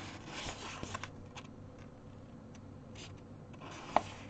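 Soft rustling of a printed cross stitch chart on heavy, tear-resistant paper being handled, with a few faint ticks and one sharp click about four seconds in.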